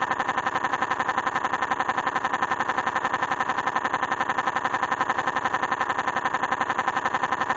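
A computer text-to-speech girl's voice repeating "no" over and over at high speed, many times a second in an even rhythm without a break.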